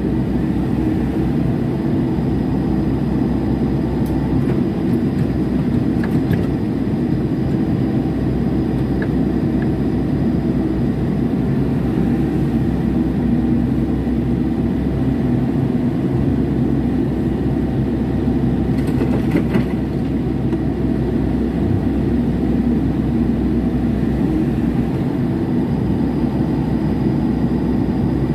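Small hydraulic excavator's diesel engine running steadily under working load, heard from inside the operator's cab, with a brief clatter about two-thirds of the way through.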